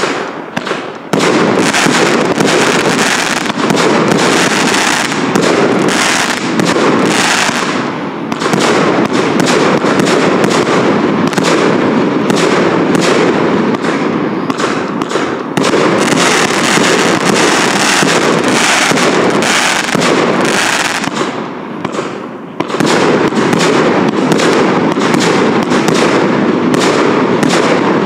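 Triplex TXB853 Future X fireworks cake, a 49-shot 30 mm battery, firing shot after shot in rapid succession, its launches and bursts running into an almost unbroken barrage. The barrage eases briefly about 21 seconds in, then picks up again.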